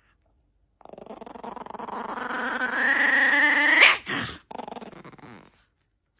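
Small puppy growling, the growl rising in pitch and loudness for about three seconds and breaking into a high yip, followed by a few quieter growls. The growling is the puppy guarding a small can from a reaching hand.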